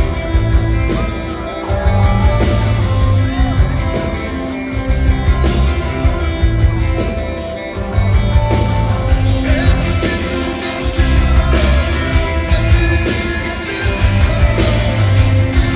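Live rock band playing at full volume: electric guitars, bass and drums, with a singer's voice over them.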